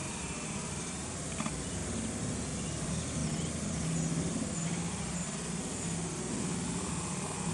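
Steady outdoor background noise: a low hum under a high hiss, growing slightly louder toward the end, with one brief click about a second and a half in.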